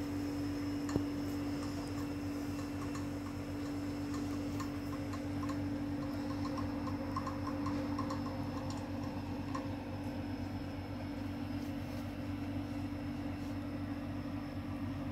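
A steady low hum with faint light ticking from about a second in until about ten seconds in, and a single sharp click about a second in.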